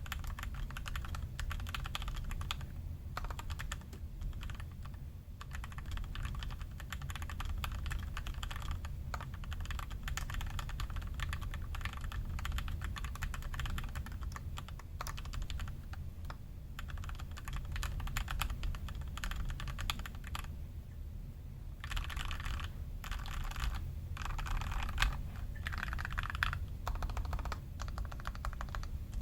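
Typing on an iQunix F96 96% mechanical keyboard fitted with Durock L2 linear switches in mill-max hotswap sockets: a steady, irregular stream of keystroke clacks. The keystrokes stop briefly about two-thirds of the way through.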